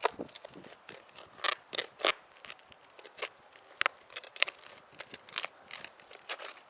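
Hand digging tool cutting and prying through turf and soil, with irregular crunching and tearing strokes as grass roots give way.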